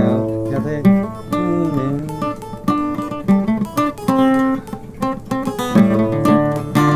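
Two acoustic guitars playing an instrumental passage without singing: strummed chords with picked single notes ringing over them.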